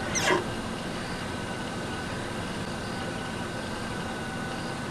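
Safari vehicle's engine idling steadily. Just after the start, a brief sound sweeps down in pitch from high to low.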